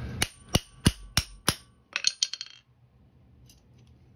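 Five quick hammer blows with a short metallic ring on a hammer-driven crimping tool, crimping a connector onto coated 3/32 steel cable, followed by a brief rattle of lighter clicks as the tool is handled.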